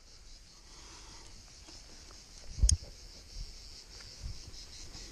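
Steady high insect chirring throughout, with one sharp knock about two and a half seconds in and a few softer thumps after it.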